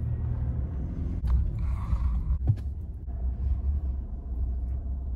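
Truck driving along: a steady low rumble of engine and road, with a few faint knocks.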